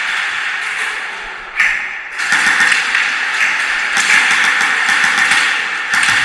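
Airsoft electric guns firing in rapid clattering bursts, with a brief lull a little before the middle, then heavier firing.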